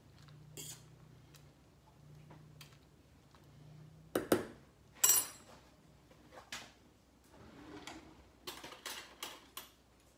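Metal kitchen utensils clattering: two loud sharp clinks with a bright ring about four and five seconds in, then a quick run of lighter clicks near the end.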